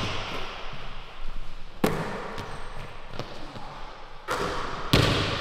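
Basketball thudding on a hardwood gym floor, four sharp impacts about a second apart, each echoing in the large hall, the last one the loudest.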